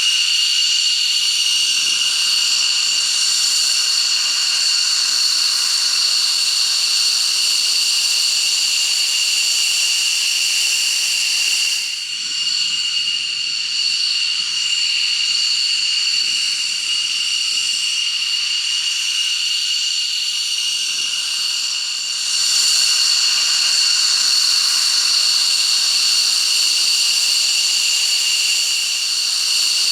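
A jet engine running steadily: a high-pitched whine of several steady tones over a rushing hiss. It dips briefly about twelve seconds in and again just before twenty-two seconds.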